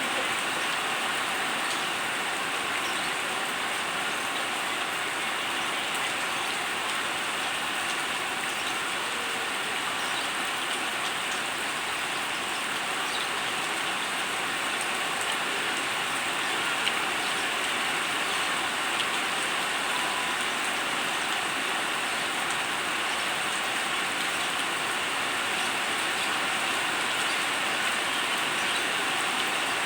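Steady hiss of falling water from a bird's rain bath, even and unchanging throughout.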